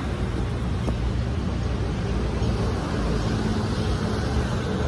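Steady road traffic noise from passing cars.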